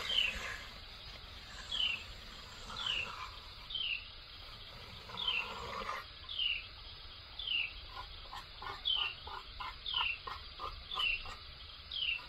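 Hand float and edging tool scraping over the wet concrete top of a wall form in short strokes, while a bird repeats a short falling chirp about once every three-quarters of a second.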